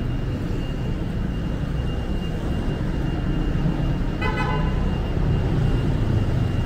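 Street traffic rumbling steadily, with one brief vehicle horn toot about four seconds in.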